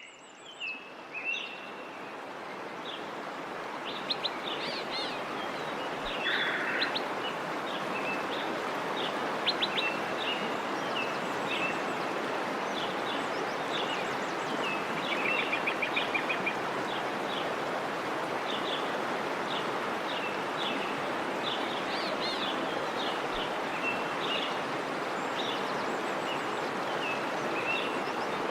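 Small birds chirping and calling over a steady rushing hiss that fades in over the first few seconds, with a fast trill about halfway through.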